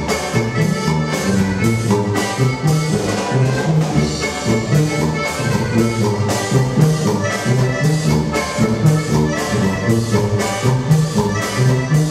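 Live band music: an accordion playing over a sousaphone bass line, with guitar and a drum kit keeping a steady beat.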